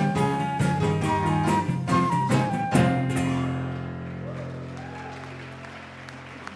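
The instrumental ending of a worship song: the band plays quick notes for about three seconds, then lands on a final chord that rings on and slowly fades away.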